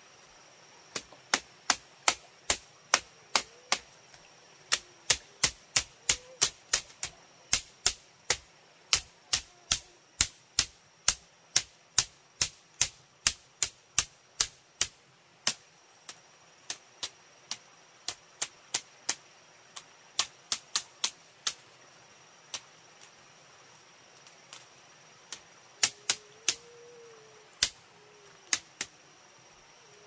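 Sharp knocks, about two to three a second in runs with pauses, sparser in the second half and a short cluster near the end, over a steady high insect buzz.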